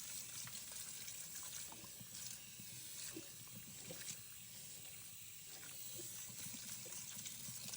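Faint water sounds and small clicks of raw chicken wings being washed by hand in water with lime and lemon juice.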